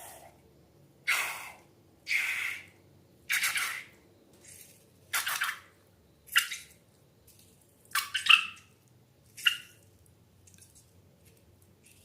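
Slime squelching in a string of short wet squishes and plops, about one a second, two of them close together about eight seconds in.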